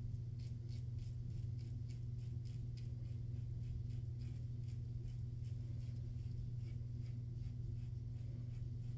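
Charcoal Goods Level 2 safety razor scraping through lather and stubble on the neck in a run of short, quick strokes, several a second, over a steady low hum.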